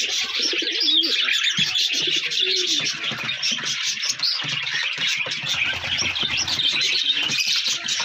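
Fantail pigeons cooing in a loft, over a steady, dense chirping of many birds that runs throughout.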